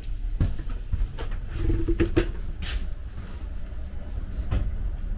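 Passenger railcar ventilation fan running with a steady low rumble. Several light clicks and knocks are scattered over it, the clearest about two and nearly three seconds in.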